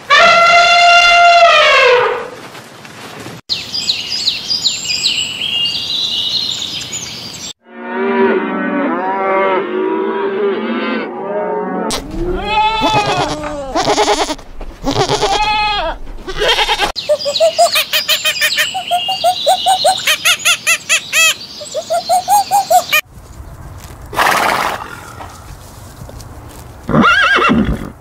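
A run of separate animal calls, one clip after another: an elephant trumpeting at the start with a falling pitch, then several goats bleating over each other through the middle, then a horse whinnying in a shaky, pulsing call near the end.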